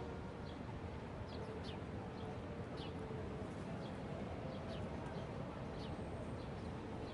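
Steady low city rumble with small birds chirping over it: short, high, downward-sweeping calls that come every half second to a second.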